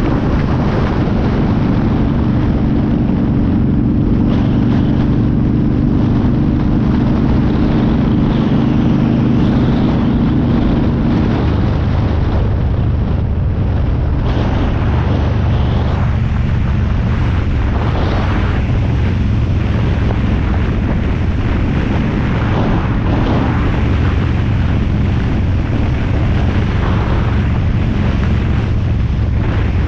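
Cruiser motorcycle engine running steadily on the move, with wind buffeting the microphone. About eleven seconds in, the engine note changes as its higher tones drop away.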